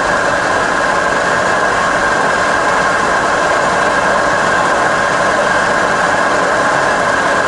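Bridgeport variable-speed milling head running steadily with the spindle turning in high range: an even machine hum with several steady whining tones, while the quill power feed drives the quill slowly downward.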